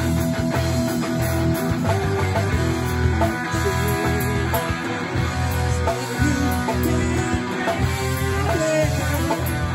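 A rock band playing live, guitar lines over a steady low bass.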